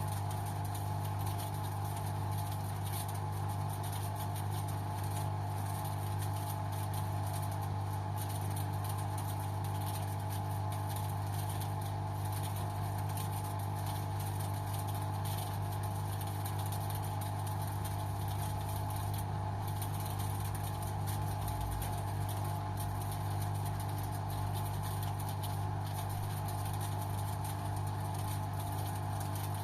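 LG washing machine running with a steady mechanical hum at an unchanging pitch and level.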